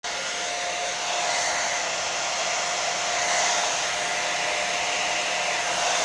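Hand-held hair dryer running steadily, blowing onto a wig cap: a rush of air with a steady whine.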